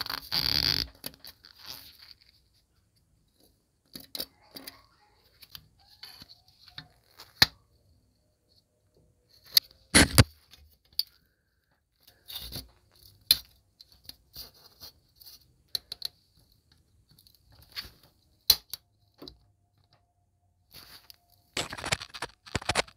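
Metal clicks, clinks and scrapes as the rusted wire bail and coil spring of an old sheet-metal mouse trap are worked loose with pliers and a screwdriver. The sounds come in short, scattered bursts, loudest about half a second in, about ten seconds in and near the end.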